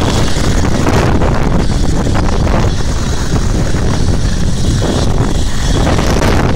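Loud, steady rushing noise of wind buffeting the microphone, mixed with a helicopter's engine and rotor running on a ship's helideck.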